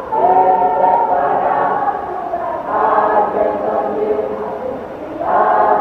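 Church choir singing a hymn in many voices together, holding long notes, with a new phrase starting about every two and a half seconds.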